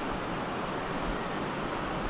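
Steady outdoor wind, an even rushing hiss with no distinct events.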